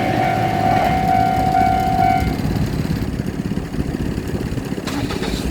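JR Shikoku 2700 series limited express diesel train running past with a steady low rumble. A steady high tone sounds over the first two seconds and then stops.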